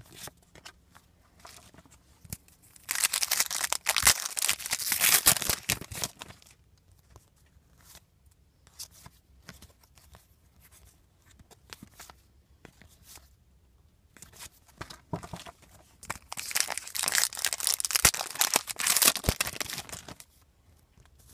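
Foil trading-card pack wrapper being torn open and crumpled. It comes in two bouts of loud crinkling a few seconds each, one about three seconds in and one some thirteen seconds later, with soft rustling of cards being handled between them.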